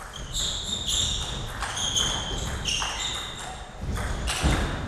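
Table tennis rally: a celluloid-type ball clicking sharply off the rubber of the bats and the table top, back and forth at about two to three hits a second.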